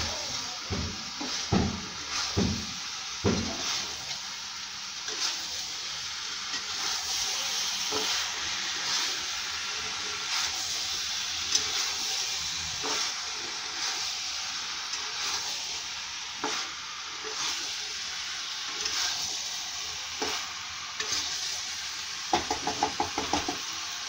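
Young jackfruit, potatoes and prawns sizzling in oil and spice masala in a kadai while a spatula stirs and scrapes through them: the dish being sautéed (kosha) together. A few stronger stirring strokes come in the first few seconds and a quick run of them near the end, over a steady sizzle.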